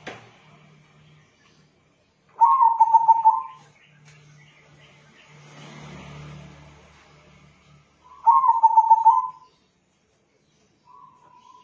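Zebra dove (perkutut), a local crossbred bird, cooing in phrases of rapid staccato notes: two phrases of about a second each, some six seconds apart, and a short faint one near the end. A single click at the very start.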